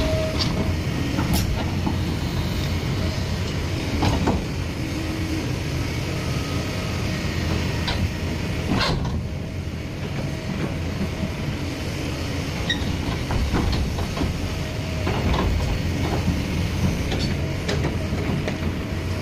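Kobelco hydraulic excavator's diesel engine running steadily under load while the bucket works under a steel frame, with several sharp metal clanks and knocks as steel strikes steel.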